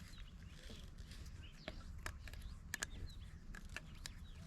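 Faint outdoor ambience: a steady low rumble with a few sharp clicks and small bird-like chirps.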